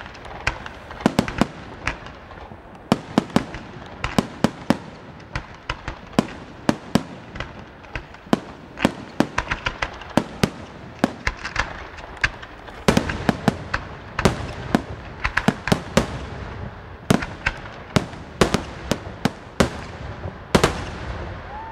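Aerial fireworks shells bursting in a rapid, irregular run of sharp bangs, about two or three a second, with a haze of noise between the reports.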